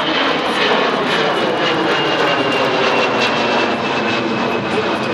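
Airbus A320's CFM56 turbofan engines passing overhead: loud, steady jet noise with a thin high whine that slowly falls in pitch.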